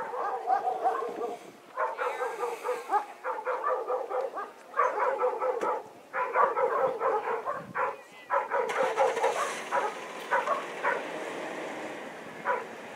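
A Bouvier des Flandres herding dog barking over and over in rapid bursts. The barking thins out to a few single barks near the end.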